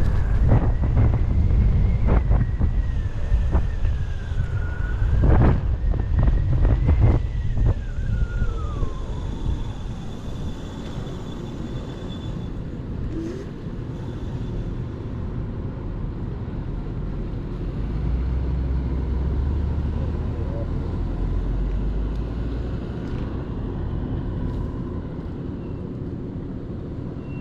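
Kaabo Mantis electric scooter's dual 1000 W hub motors whining as it accelerates: the whine rises, holds high, dips, rises again, then falls away after about nine seconds as the scooter slows. Heavy wind rumble on the microphone and road noise run under it. After that there is steadier, quieter road and wind noise, with a low rumble about two thirds of the way through.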